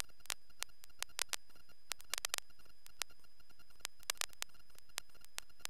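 Faint intercom/radio audio feed with no speech: sharp clicks at irregular intervals, bunched in quick clusters about two seconds in and again about four seconds in, over a steady electrical hiss with a thin high whine.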